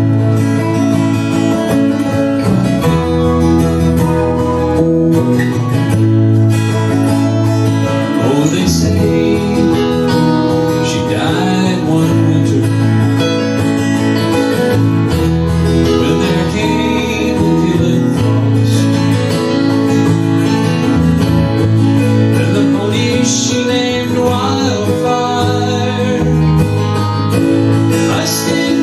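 Small live band playing: strummed acoustic guitars over electric bass and keyboard, with singing in places.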